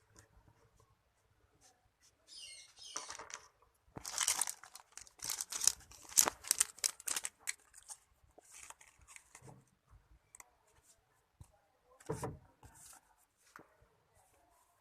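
Plastic packaging being torn open and crinkled while a mobile phone holder is unboxed: dense crackling for a few seconds, loudest in the middle, then scattered rustles and clicks with one more short burst near the end.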